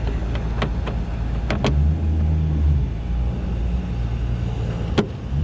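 A few sharp clicks and taps from work on a car door's inner parts over a low rumble, with a louder click near the end.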